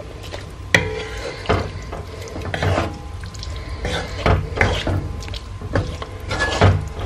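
Wooden spatula stirring a chicken and chickpea curry in a pan, scraping across the pan's bottom with irregular knocks against it.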